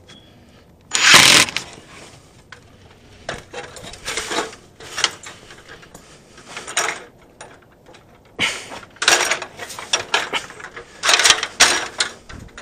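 Irregular handling noise of tools and gear being moved: scattered knocks, clatters and rustles with a few sharp clicks, the loudest a short burst about a second in.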